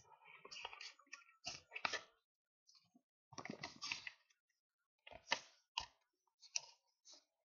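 A paper envelope being handled and folded by hand: short, irregular bursts of paper rustling and crinkling, with a few sharp crackles as the folds are creased.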